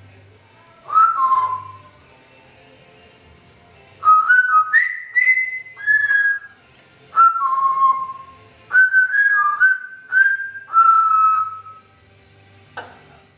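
African grey parrot whistling a string of short notes, each gliding in pitch, mostly downward, with a brief scratchy start. One falling two-note whistle comes about a second in, then a run of some ten whistles from about four seconds in until near the end.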